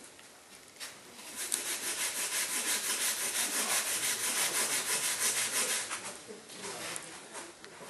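Rapid, even back-and-forth scraping strokes, several a second, like brisk rubbing or scrubbing, starting about a second and a half in and fading out about six seconds in.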